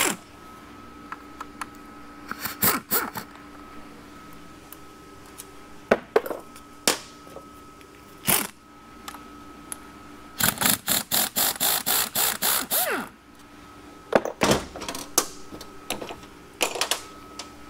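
Wrench work on the center support bolts of a 4L80E automatic transmission: scattered metal clicks and knocks, then about ten seconds in a quick run of even ratcheting clicks, roughly five a second, lasting a couple of seconds. A faint steady hum runs underneath.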